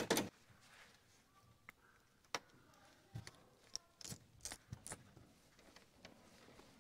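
Gloved hands working wires inside an open breaker panel: scattered light clicks and rustles of wire and small metal parts being handled.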